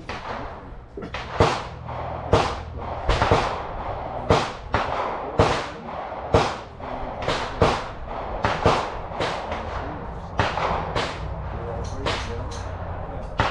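Gunshots at a shooting range fired in quick, irregular succession, about one or two a second, some louder and sharper than others, over a steady low rumble.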